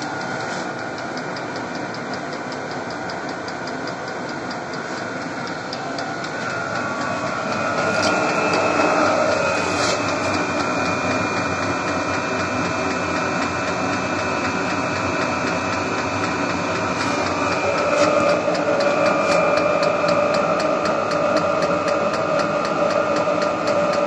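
iMars CH-S1 12 V Chinese diesel air heater running in its normal heating stage: the combustion and blower fans whir steadily, with a regular ticking that is typical of the fuel dosing pump. It gets a little louder about eight seconds in.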